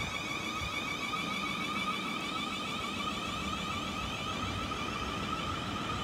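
South Western Railway Siemens Desiro electric multiple unit running past, its traction equipment giving a whine of several high tones held nearly steady, over the low rumble of wheels on rail.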